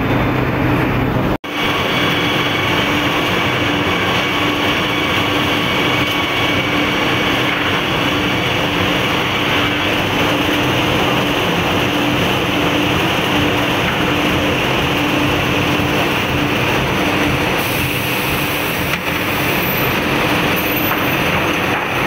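Forta circular-saw sawmill line running: motors, chain and roller conveyors and saw machinery make a continuous loud machinery noise with a steady low hum in it. The sound drops out briefly about one and a half seconds in.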